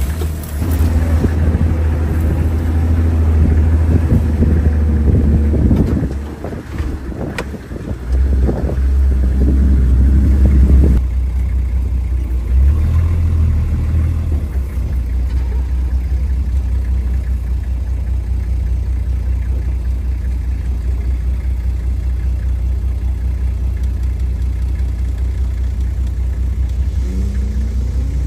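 Off-road 4x4 engine and drivetrain running over a rough dirt track, heard from inside the vehicle as a loud low drone. The noise is rougher and busier for about the first eleven seconds, then settles to a steadier hum.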